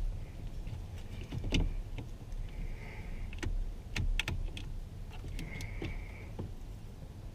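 Scattered clicks and taps of hands and tools handling plastic switch and steering-column parts, with two short squeaks, over a steady low hum.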